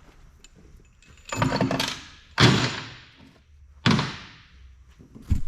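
Heavy engine parts being handled: four loud metal clunks and thuds about a second apart, each dying away with a short ring.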